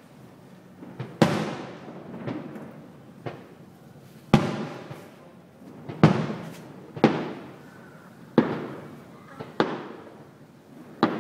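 Aerial fireworks shells bursting, about ten sharp booms at irregular intervals, each trailing off in a rolling echo.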